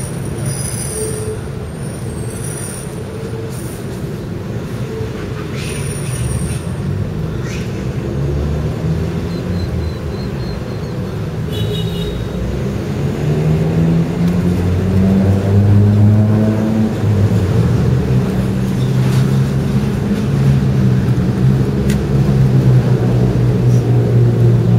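Steady rumble of heavy vehicle traffic. A deep engine drone grows louder over the second half.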